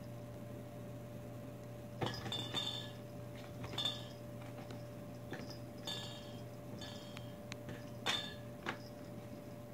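A cat biting and pawing at a cardboard 12-pack box of beer cans: half a dozen short scrapes and clinks as the cardboard is worked and the cans inside knock together, over a steady faint electrical hum.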